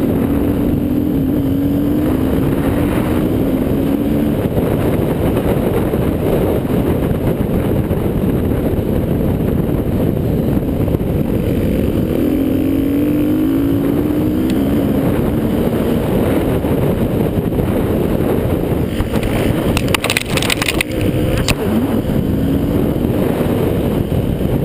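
Husaberg FE 350 four-stroke single-cylinder dirt bike engine running hard under load, its pitch climbing in stepped runs through the gears several times. A few sharp clicks or knocks come about twenty seconds in.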